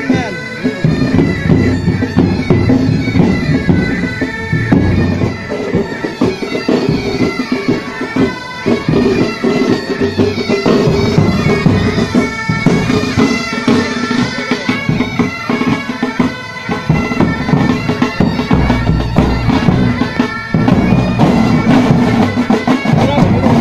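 Military pipe band playing: bagpipes sounding a melody over their steady drones, with the drum corps beating along. The drums come up heavier in the last few seconds.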